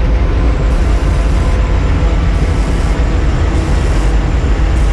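Aerial ladder truck's engine running steadily with a continuous low rumble and a faint steady hum while the ladder is being moved.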